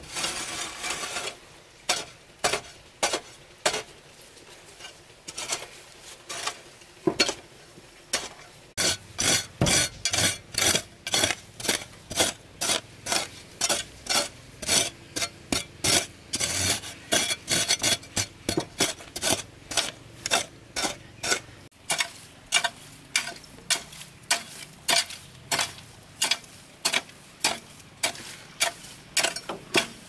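Short, sharp scraping or striking strokes, repeated by hand: scattered at first, then from about nine seconds in a steady run of about two a second.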